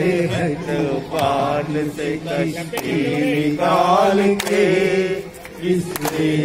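An elderly man singing a Hindi song into a handheld microphone in a slow, chant-like style, holding long wavering notes. A few scattered hand claps.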